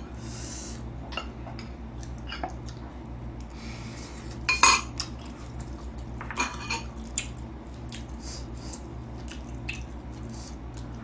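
Chopsticks clicking and scraping against takeaway food containers and dishes while eating fried chicken, in scattered short clicks with louder clatters about four and a half and six and a half seconds in.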